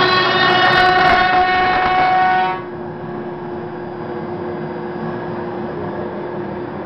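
CNC router spindle running with a loud, many-toned whine while its bit cuts through foam insulation board. About two and a half seconds in, the high whine cuts off abruptly and the level drops, leaving a quieter steady hum.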